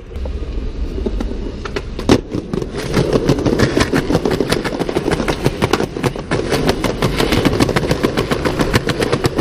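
Skateboard rolling on pavement: a low wheel rumble, one sharp clack about two seconds in, then a rapid clattering of clicks as the wheels run over the rough sidewalk.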